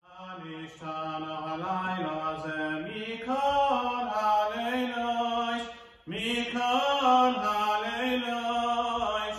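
A cantor's solo male voice chanting a slow, ornamented liturgical melody, holding long notes that bend and slide between pitches, with a short break about six seconds in.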